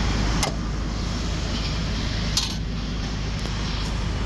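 Steady low rumble of airport ramp machinery, with two short sharp metallic clicks, one about half a second in and one near the middle.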